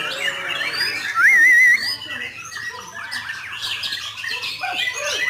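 Many songbirds singing and chirping at once, among them white-rumped shamas, with a loud wavering trill about a second in.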